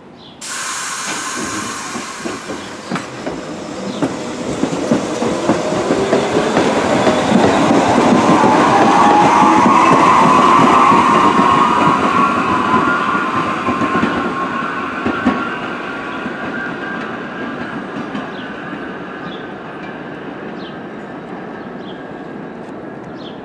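Bombardier R62A subway train pulling out, its motor whine rising in pitch as it gathers speed, with the wheels clacking over rail joints; the sound swells to its loudest about halfway through, then slowly fades.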